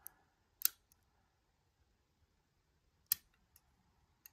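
Sharp metallic clicks from a lock pick working the pins of a Nemef NF2 lock cylinder held under tension: about five scattered clicks, the two loudest about half a second in and about three seconds in.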